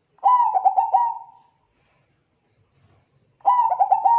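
Zebra dove singing two song phrases about three seconds apart, each a ringing coo that breaks into a quick run of short stuttering notes and trails off.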